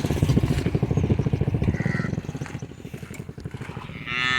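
Motorcycle engine running with a rapid, even putter, loudest for the first two seconds and then fading. Near the end a cow starts to moo.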